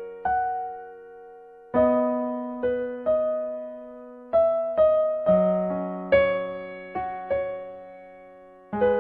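Background music: slow, gentle piano playing, single notes and chords struck a few at a time and each left to ring and fade.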